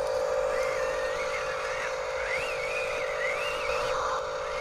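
Small electric motor and gearbox of a radio-controlled construction toy whining steadily, with a higher warbling tone wavering up and down above it.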